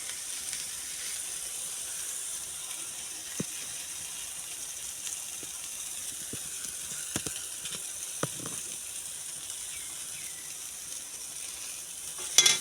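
Potato-and-pea curry sizzling steadily in a pan, with a few sharp clicks of a spoon against the pan and a louder clatter near the end.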